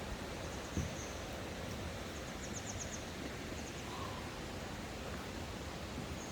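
Steady rushing outdoor background noise with a small bird calling in high, thin notes, including a quick trill of about six notes between two and three seconds in. A soft low bump about a second in.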